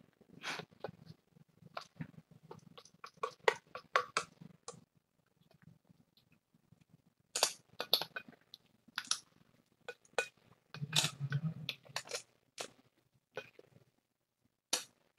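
Scattered light clicks and clinks, in two clusters split by a short pause, with one last click near the end.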